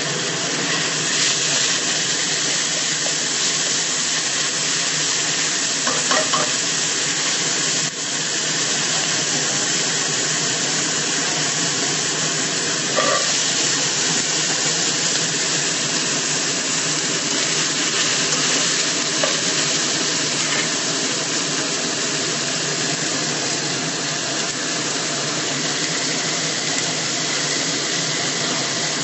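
Ground pork, garlic and snap beans sizzling in hot oil in a frying pan, a steady hiss of frying, with a few brief light knocks along the way.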